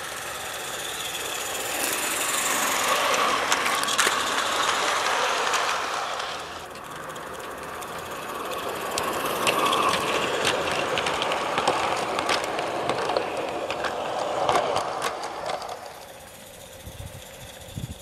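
A G-scale live-steam model train running past on garden railway track: a steady hiss and rattle with many sharp clicks of the wheels on the rails. It gets louder twice as the train comes close.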